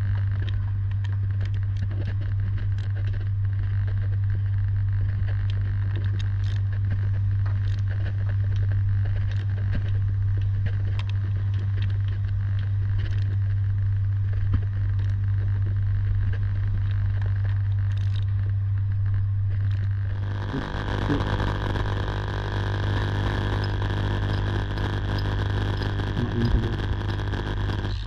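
Steady low electrical hum of energised high-voltage substation equipment, with scattered faint clicks. About twenty seconds in the hum drops away abruptly and a broader hiss takes over.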